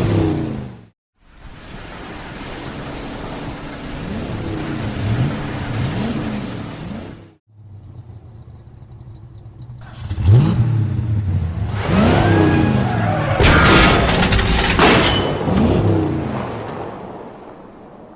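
Anime sound effects: a car engine revving in repeated rising surges over a steady rumble, then a louder stretch of revving with sharp hits and crashes, fading out near the end.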